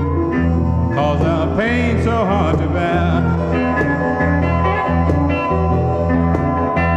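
Old blues record playing from a vinyl LP in mono: a band passage with a steady bass line under lead notes that bend in pitch.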